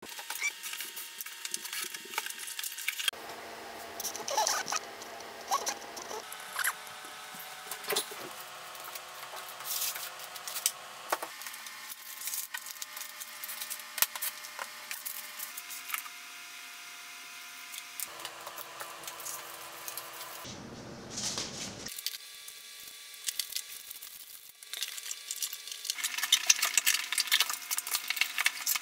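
Unboxing handling noise: paper and plastic packaging rustling and crackling, and a laptop and its box being slid and set down on a desk, with scattered clicks and taps over a faint steady hum. The crackling is densest and loudest near the end.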